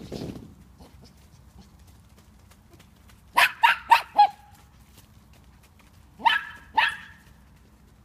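Dog barking in short sharp yaps: four quick barks about three seconds in, then two more a couple of seconds later. A short muffled bump is heard right at the start.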